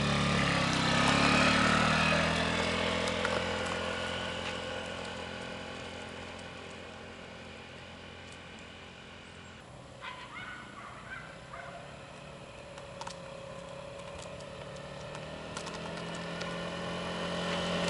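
Honda Ruckus 49cc single-cylinder four-stroke scooter engine pulling away and running on a test ride after its carburetor was cleaned and rejetted. It fades as the scooter rides off, then grows louder again near the end as it comes back.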